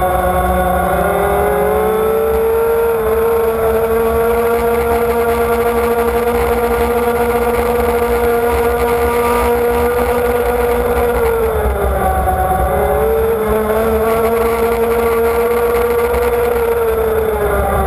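Powerboat engine running at high speed, heard from on board over a steady rush of water and wind. The high engine note climbs in the first couple of seconds, then holds. About twelve seconds in it dips for a second and climbs back.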